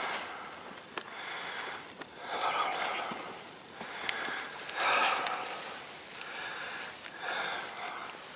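A person breathing audibly: a run of noisy breaths, in and out, each about a second long, with a few faint clicks between them.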